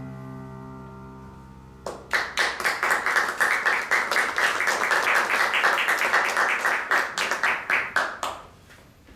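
A held piano chord dies away. About two seconds in, audience applause breaks out, dense and steady, and fades out near the end.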